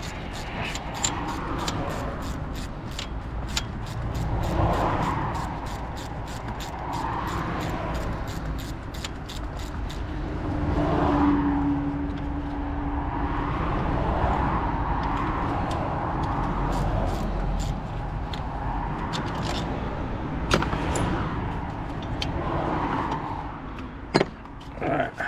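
Ratchet wrench clicking rapidly as bolts are wound out of the top of the gearbox, an even run of about five clicks a second that stops about ten seconds in, followed by scattered clicks and tool knocks. A steady low rumble runs underneath.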